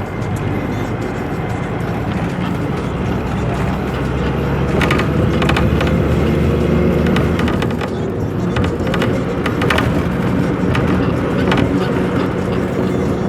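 Steady vehicle engine and road noise with music playing, and a few short clicks or rattles.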